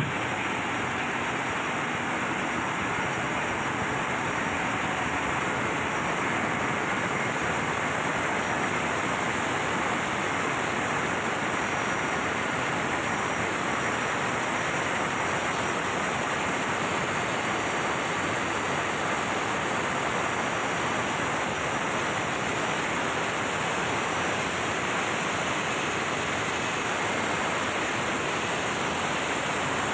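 Steady engine-room noise from a running MAN B&W auxiliary diesel generator engine carrying about 75% load: an even, unbroken wash of noise with no change in level.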